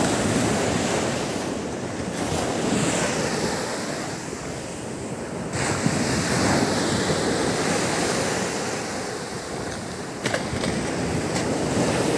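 Sea surf washing onto a beach, with wind buffeting the microphone; the noise swells and fades.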